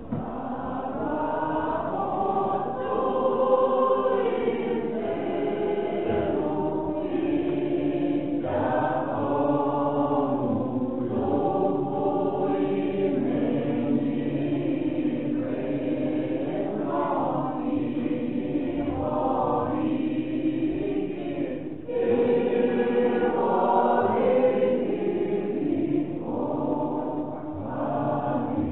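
Church choir singing liturgical chant during the wedding service, in unbroken sung phrases a few seconds long.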